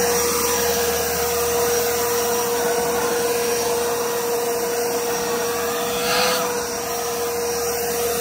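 WORX WG520 Turbine 600 corded electric leaf blower running steadily. Its 12-amp motor and turbine fan give a steady whine over a dense rush of air.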